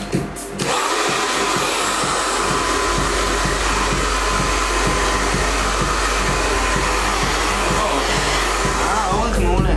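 Handheld hair dryer blowing steadily, with a thin steady motor whine; it switches on under a second in and runs to the end. Background music with a regular beat sits underneath.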